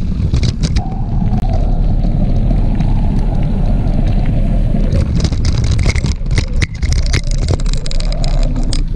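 Mountain bike ridden over rough ground: a steady low rumble of wind and motion on the action camera's microphone, with many sharp clattering knocks from the bike.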